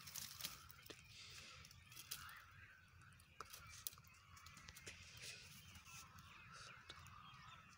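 Faint outdoor ambience: distant birds calling, with scattered clicks and knocks from the phone being handled and footsteps on dry ground.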